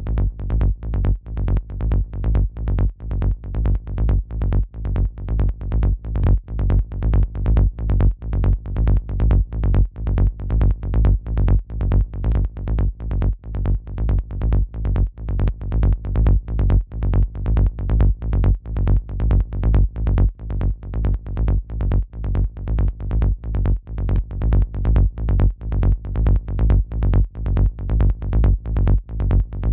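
Electronic synth bass line played back in FL Studio, one low note repeated on every beat in an even pulse of about two to three a second, processed by the Waves H-Comp hybrid compressor.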